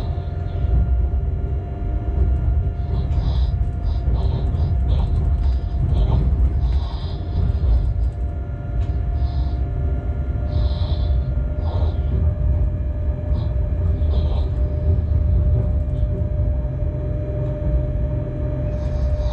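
Locomotive running light, heard from the cab: a steady low rumble of wheels on rail, with a steady whine over it and brief high-pitched sounds coming and going.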